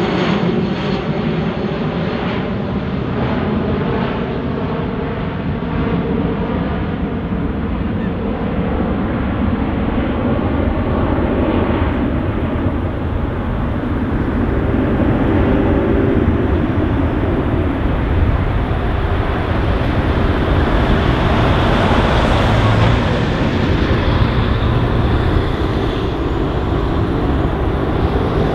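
Airbus A340-300's four CFM56-5 turbofan engines running, loud and steady, with the hiss growing stronger over the last third.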